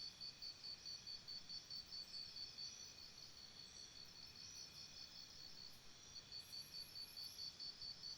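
Faint insects chirping in a steady pulsed rhythm of about four high chirps a second, with other insects buzzing steadily underneath; the chirping pauses briefly about six seconds in, then resumes.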